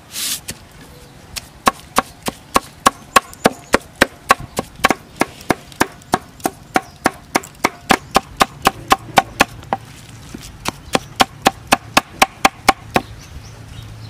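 Cleaver chopping rapidly on a wooden chopping board, mincing a soft crab-and-chilli prahok paste, about four blows a second, with a short pause near the middle.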